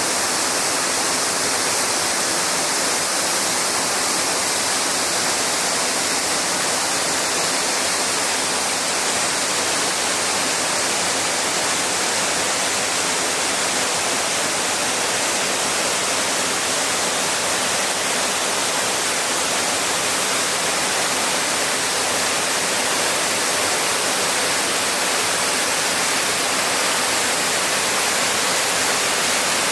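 Water pouring over Harajiri Falls: a steady, even rushing hiss of falling water, unchanging throughout.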